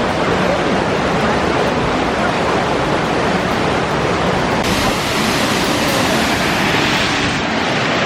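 Anna Ruby Falls, a twin waterfall, rushing steadily with a loud, even sound of falling water that grows a little brighter about halfway through.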